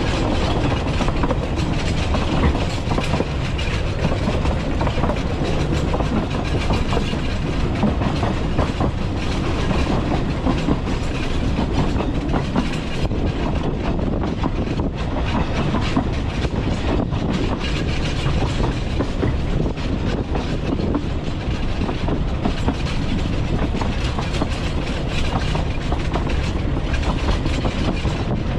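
Narrow-gauge railway carriage running along the track: a steady rumble with frequent clicks of the wheels over the rails.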